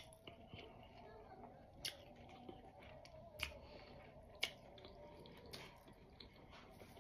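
Quiet close-up chewing with a few sharp mouth clicks, about one every second or so.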